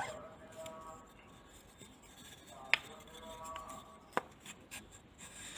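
Quiet handling noise with two sharp clicks or knocks, the louder one about two and a half seconds in and a weaker one a second and a half later.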